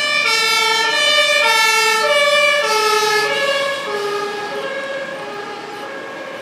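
Emergency vehicle two-tone siren alternating between a high and a low note, about one full cycle a second. It is loud at first, then fades and drops slightly in pitch about four seconds in as it moves away.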